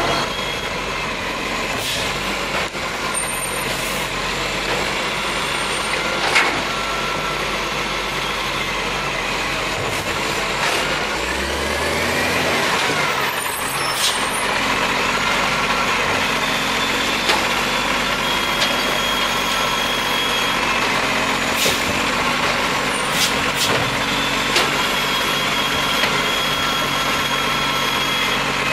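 Iveco Acco side-loader garbage truck's diesel engine running as it pulls up, with short air-brake hisses and clunks now and then. Near the end its hydraulic side arm lifts a bin.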